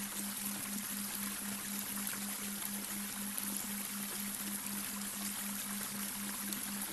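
Babbling brook water running steadily, with a low electronic delta-wave tone humming beneath it, pulsing about four times a second.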